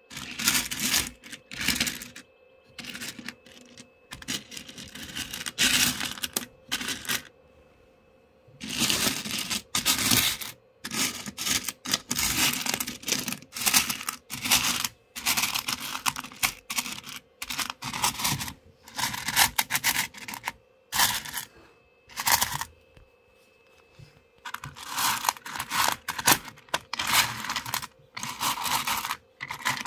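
Pieces of rough black opal stirred by hand, clattering and scraping against each other in irregular bursts of clicks, with a couple of short pauses.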